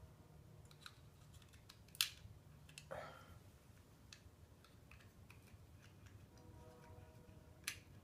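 Small metal clicks and taps of a screwdriver working at a Mitsuba starter motor's brush holder, pushing the brushes back so the armature's commutator can be fitted between them. There is a sharp click about two seconds in, a short scrape a second later, and another sharp click near the end.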